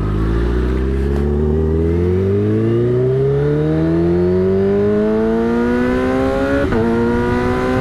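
Kawasaki Ninja H2's supercharged inline-four, fitted with an aftermarket Brock's exhaust, accelerating from a pull-away. Its engine note climbs steadily in pitch, with a brief break near the end.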